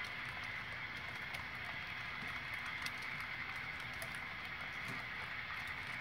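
HO scale model freight cars rolling along the track: a steady rolling rattle with scattered light clicks from the wheels over rail joints.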